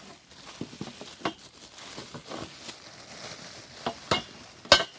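Steel stand legs and parts being handled, with rustling and a string of light clicks and knocks, and one sharp knock near the end.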